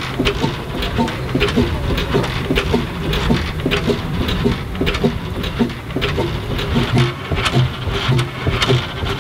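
Steam traction engine running out of gear, its flywheel turning: a busy rhythmic clatter of the motion with hiss over it.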